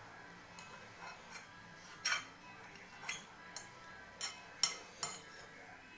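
Eating utensils clicking and clinking against a bowl of noodles: about five short, sharp clicks at irregular moments, the clearest about two seconds in and a cluster late on.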